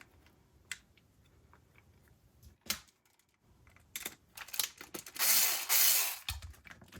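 Small M3 screws being driven into a 3D-printed plastic part: a few light clicks of handling, then about a second of loud screwdriver noise near the end as a screw goes in.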